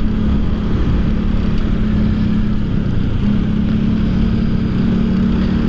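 Motorcycle engine running at a steady cruise, with road and wind noise on the microphone; the engine note fades briefly about halfway through, then holds steady again.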